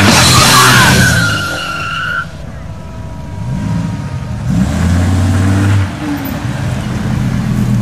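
Engines of large American cars driving slowly past one after another, one rising in revs about four seconds in, then a low steady engine sound. Music fades out in the first second, and a high tone slides down and cuts off about two seconds in.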